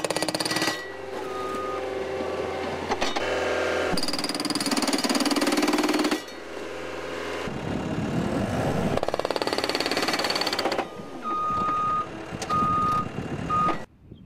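Cat hydraulic hammer on a Cat 297C tracked loader pounding concrete in rapid, even blows, in stretches broken by the loader's engine running on its own. Near the end a backup alarm beeps three times, then the sound cuts off suddenly.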